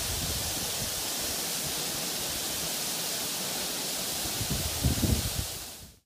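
Waterfall in heavy flow: a steady, even rush of falling water, with a few brief low rumbles a little after four seconds in. The sound fades out just before the end.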